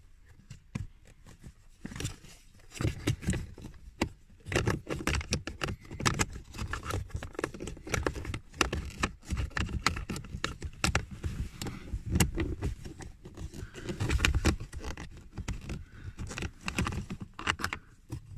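Small plastic cabin-filter cover being handled and worked into its housing by hand: a long run of light plastic clicks, taps and scraping.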